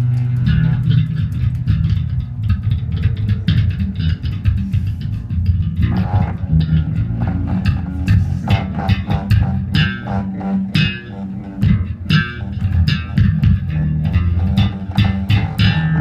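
Experimental noise music played live: a low drone breaks about half a second in into dense, irregular low plucked notes, peppered with sharp clicking attacks.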